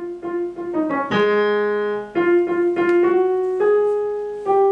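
Digital piano being played: several quick single notes, then a held chord about a second in, followed by more notes and chords.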